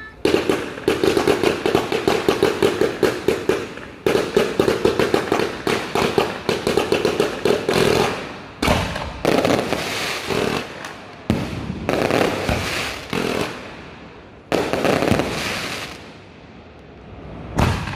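Consumer fireworks cake firing a rapid volley of shots, several a second, for about eight seconds. It then slows to separate bursts that fade out, with one last loud burst near the end.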